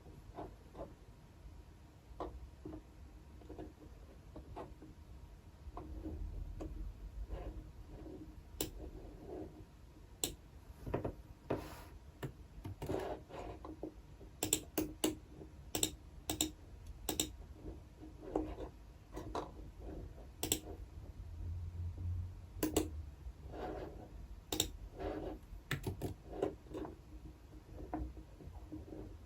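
Typing on a computer keyboard: irregular keystrokes in short runs with pauses between, busiest in the middle and again near the end.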